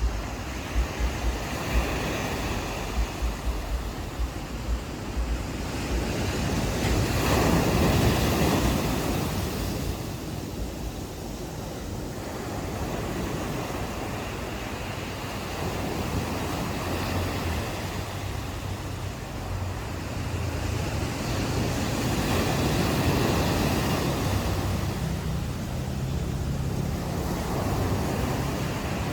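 Ocean waves washing onto a beach, swelling in slow surges about 15 s apart. Wind buffets the microphone near the start, and a low steady hum runs underneath in the second half.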